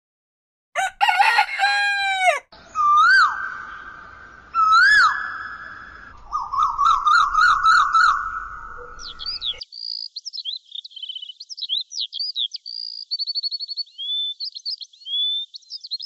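A rooster crowing several times, starting about a second in, then songbirds twittering with high quick chirps and trills from about ten seconds in.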